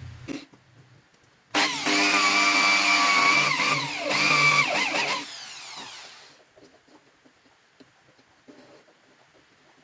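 Bench grinder running with a loud, high, whining tone for about four seconds, then fading away as it winds down.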